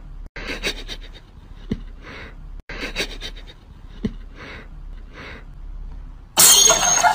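A cat chewing and nibbling on a sock: soft crisp clicks of its bites with breathy puffs between them, in a short stretch that repeats every couple of seconds. Loud music cuts in abruptly near the end.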